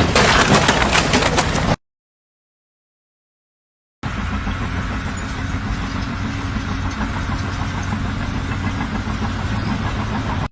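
A loud clattering rattle that cuts off suddenly after about two seconds, then, after a gap of dead silence, an engine running steadily with a low, even hum.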